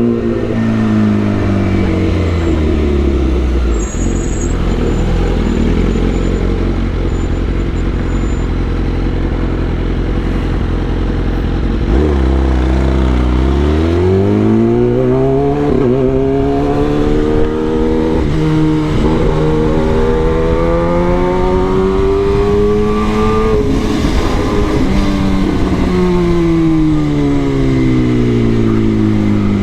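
Kawasaki ZX-10R inline-four engine under way, its pitch falling as the bike slows at the start, then rising steadily for about ten seconds from a little before halfway as it accelerates, and dropping again near the end, with a constant rush of wind noise underneath.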